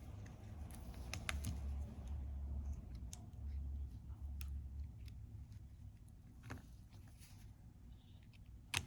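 Small tools and parts being handled during phone reassembly: scattered faint clicks and taps, with one sharp click near the end, over a steady low hum.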